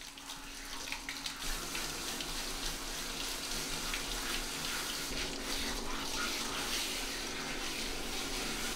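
Water spraying steadily from a hand-held hose nozzle onto a wet dog's coat and splashing onto a tiled shower floor, building up over the first second or so. A faint steady low hum runs beneath it.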